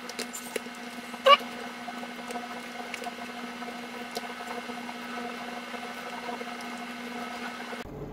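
Steady low hum with a few light ticks and clicks, and one sharper, louder click a little over a second in.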